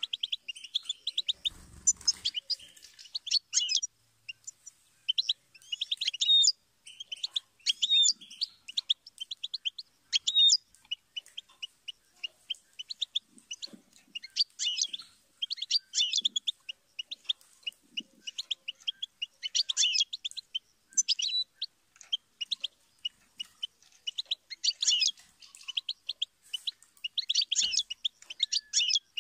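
European goldfinch singing: fast twittering and trilling phrases of a second or more, broken by short pauses.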